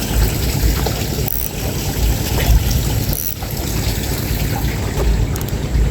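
Steady trickling, running-water noise with irregular low rumbles. A couple of brief high swishes come about a second and a half and three seconds in.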